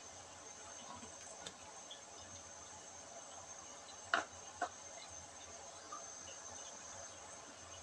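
Quiet simmering of a pot of soup, under a steady thin high-pitched tone. Two sharp clicks come about four seconds in, half a second apart.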